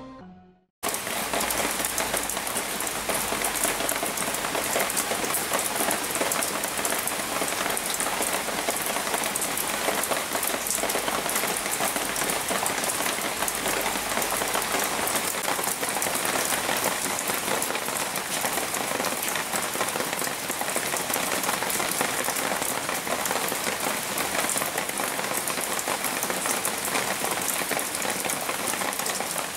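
Steady rain falling on rattan leaves: a dense, even patter of drops, starting about a second in.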